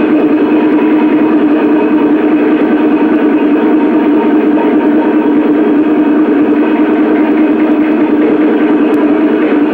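Peking opera percussion band (drums, gongs and cymbals) playing a fast, unbroken pattern to accompany a stage fight: a dense, steady din with a ringing tone held underneath.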